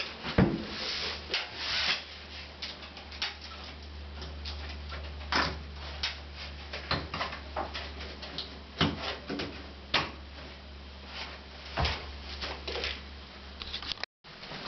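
Roller blind being handled and fitted into its brackets: irregular knocks, taps and clicks of the plastic end caps and tube against the mounting brackets, with some rubbing, over a steady low hum.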